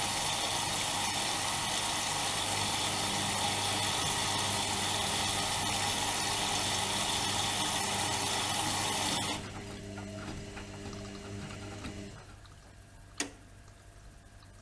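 Bauknecht WAK 5750 G washing machine mid-cycle: loud water rushing, with a steady mechanical hum underneath, that cuts off suddenly about nine seconds in. The drum motor hums on briefly and stops, followed by a single sharp click.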